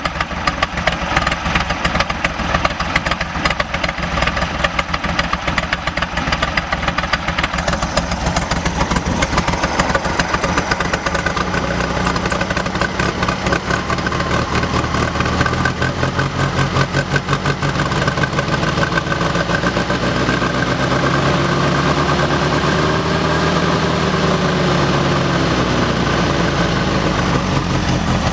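Volkswagen 1600 dual-port air-cooled flat-four idling roughly with an uneven, popping beat, a little steadier in the second half. The rough idle persists despite a rebuilt Solex 34 PICT-3 carburettor and a new SVDA distributor, cap, rotor, wires and plugs.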